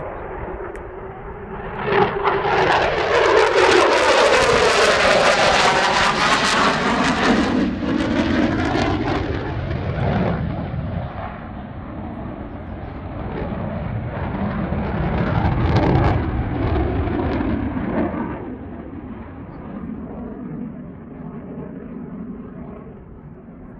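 F-16 Fighting Falcon's single jet engine as the fighter flies past: the jet noise rises sharply about two seconds in, loud for several seconds, with its tone sweeping as the aircraft passes. It swells again more weakly a little later, then fades away.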